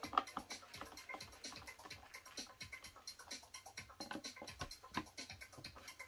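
Rapid, irregular small clicking and rustling of nylon cable ties being pulled tight through their ratchets while bundling computer wiring.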